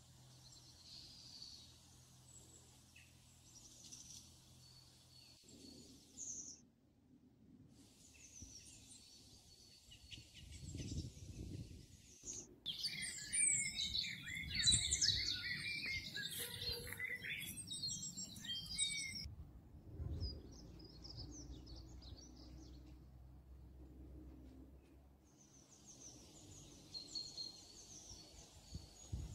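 Birds chirping and singing, fairly quiet, with a busier burst of song in the middle, over a low outdoor rumble.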